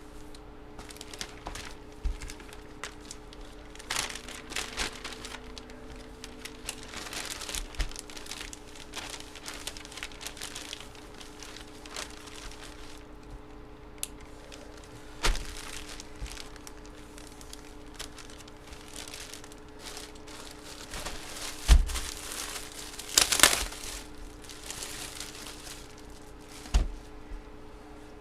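Crinkling and rustling of trading-card packaging being handled, with now and then a sharp knock on the table, the loudest near the end. A faint steady hum sits underneath.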